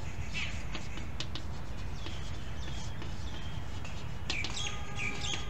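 Small birds chirping in short calls, mostly in the second half, over a steady low rumble. Faint ticks and scratches of chalk writing on a chalkboard.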